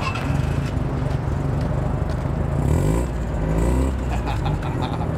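A car engine running close by, its pitch rising and falling a few times, loudest about three seconds in.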